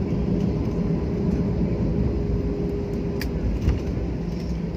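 Airliner cabin noise during the landing roll: a steady low rumble with a held engine hum, and a couple of short clicks about three seconds in.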